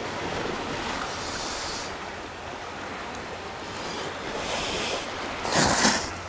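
Noodles of octopus seafood ramen slurped loudly from the bowl about five and a half seconds in, with fainter hissy slurps earlier. Under it is a steady wash of sea waves and wind.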